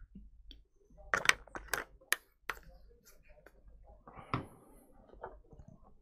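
Plastic water bottle being handled while someone drinks: a few sharp clicks and crinkles, bunched together about a second in, and another near the end.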